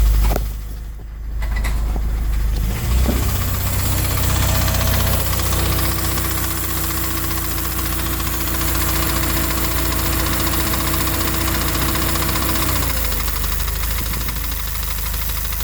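Subaru FA20DIT turbocharged flat-four running at a steady idle with the air conditioning on, with a knocking that the owner takes for engine knock. A steady whine joins about four seconds in and stops a couple of seconds before the end.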